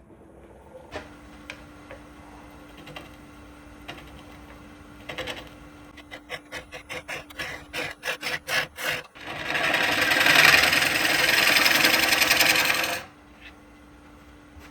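Woodturning shop tools at work: a motor hums steadily while something rubs or scrapes in a run of quick strokes that speed up. Then comes about four seconds of loud, steady hiss that stops abruptly.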